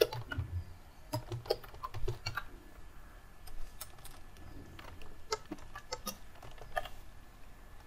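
Typing on a computer keyboard: quiet, irregular keystrokes in short runs, with pauses between them.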